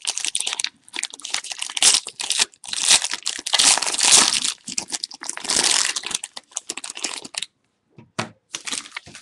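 Wrapper of a Panini Playbook football card pack crinkling and tearing as it is ripped open, in dense rustling that stops about seven and a half seconds in, followed by a few light clicks and taps.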